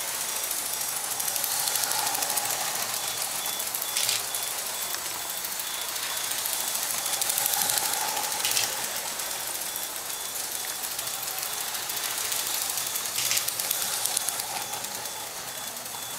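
Lego 12V electric trains running around the track, a steady motor-and-wheel whirr that swells about every six seconds as a train passes close. A sharp click comes every four to five seconds.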